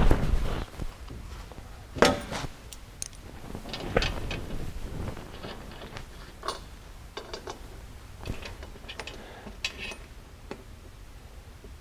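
Aluminum floorboard skid plate knocking and clanking against the UTV's underside while it is held in place and the factory bolts with cup washers are started by hand. A loud knock at the start, a sharp ringing clank about two seconds in, then scattered light metallic clicks.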